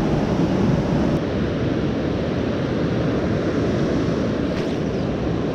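River water rushing steadily over a rocky riffle, with wind buffeting the microphone.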